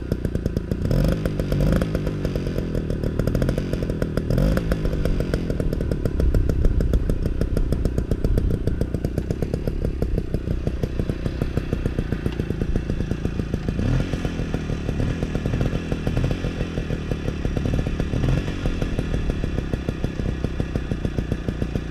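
A 1978 Zündapp ZD 25 moped's single-cylinder two-stroke engine running at idle, blipped up in brief revs about a second in, at about four and a half seconds, and again around fourteen seconds.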